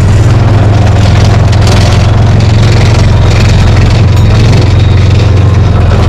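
Kubota utility vehicle's engine running with a steady, loud low drone as the vehicle moves along.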